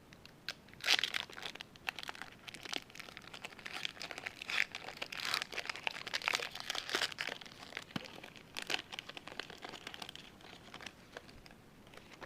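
A trading-card pack wrapper crinkling and tearing as it is opened by hand, a dense run of crackles starting about a second in and dying away near the end.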